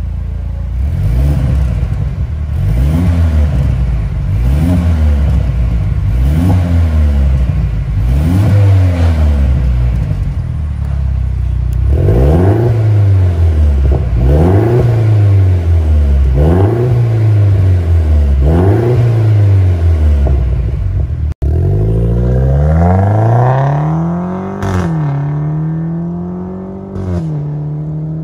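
Mercedes C300 facelift's 2.0-litre turbocharged four-cylinder through an Armytrix valved full exhaust with the valves open, blipped about nine times in a row while standing still, each rev rising quickly and falling back. After a cut, the car accelerates hard with two upshifts, each heard as a sudden drop in pitch.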